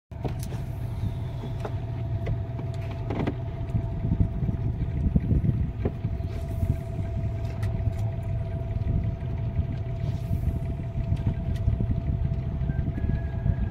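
Boat's outboard motor running steadily at low speed: a low rumble with a steady tone above it, and a few faint clicks over the top.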